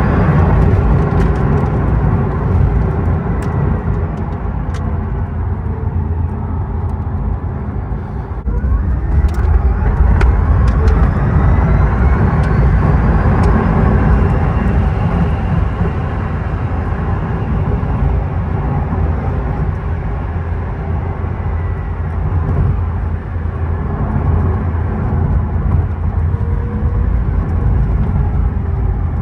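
Rimac Nevera four-motor electric hypercar driving hard: heavy road and tyre rumble with a faint whine that rises in pitch as it gathers speed. The sound eases briefly about 8 s in, then comes back louder with a fresh rising whine.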